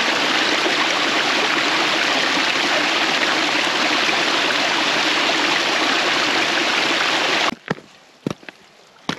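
Small mountain stream cascading over boulders in little waterfalls, a steady loud rush of water. About seven and a half seconds in it cuts off suddenly, leaving quiet with a few sharp knocks.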